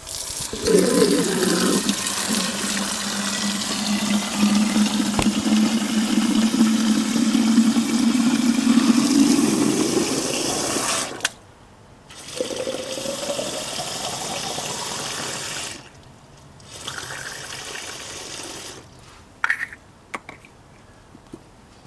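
Water running from a metal shower hose into a plastic bottle, with a tone that rises in pitch as the bottle fills. The flow stops about eleven seconds in, then runs again for a few seconds with another rising tone. A few clicks come near the end.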